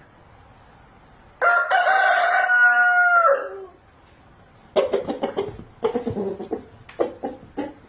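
Rooster crowing once, a single long cock-a-doodle-doo starting about a second and a half in and trailing off at the end. From about five seconds in it gives a rapid run of short clucks.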